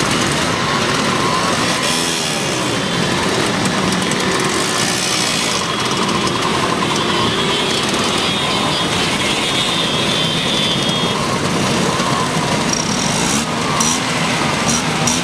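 Many Vespa scooter engines running together, several revving up and down at once in an overlapping, continuous din.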